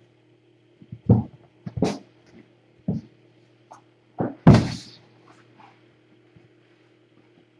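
A handful of soft bumps and rustles from kittens and a person handling them, about five in the first few seconds, the loudest and longest about four and a half seconds in. A steady low electrical hum runs underneath.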